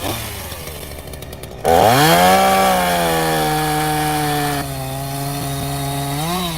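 Chainsaw idling, then revving up about a second and a half in and running at full speed through a cut in a branch. Near the end it gives one short rev and drops back toward idle.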